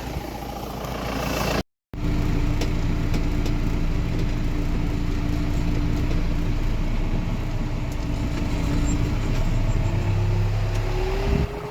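Farm tractor engine running steadily as it pulls a wagon, its pitch rising near the end as the engine speeds up.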